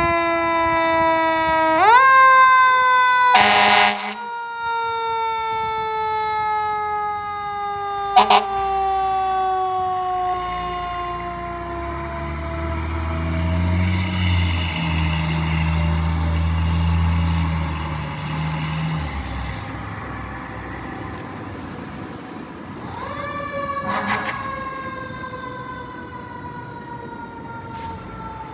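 Fire truck siren wailing, its pitch sliding slowly down and pulled sharply back up twice, about 2 seconds in and again about two-thirds through. A loud air-horn blast comes about 3 seconds in, with a brief sharp honk a few seconds later. The truck's deep engine rumble swells through the middle as it passes.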